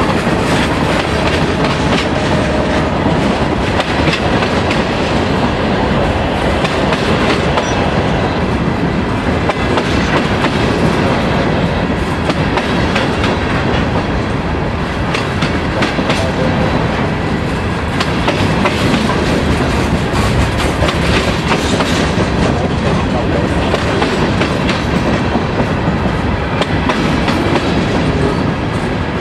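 Freight train of covered hopper cars rolling past close by: a steady, loud rumble of the cars with wheels clicking and clacking over the rails.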